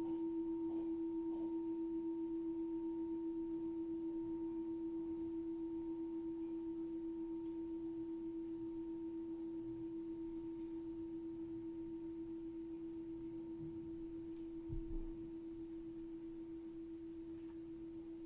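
A meditation bell's long ringing tone slowly dying away, with a steady waver in its loudness. A faint low knock sounds about fifteen seconds in.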